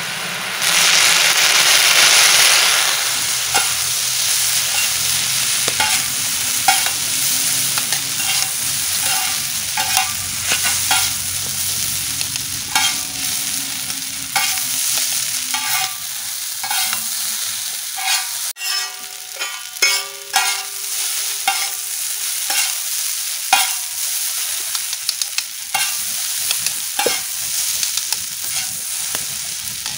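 Chowmein noodles sizzling as they are stir-fried in a large iron tawa, with a loud surge of sizzling in the first few seconds just after soy sauce has gone in. A spatula tosses the noodles, scraping and clinking against the pan about once a second.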